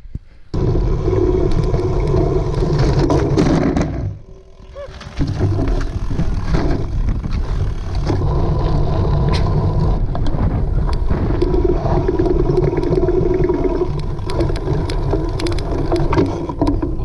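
Cyclocross bike being ridden, heard from a camera on the rider or bike: a loud, steady mix of rushing wind and rolling, rattling noise, with many small clicks and knocks. It drops out briefly twice, about half a second in and again around four seconds in.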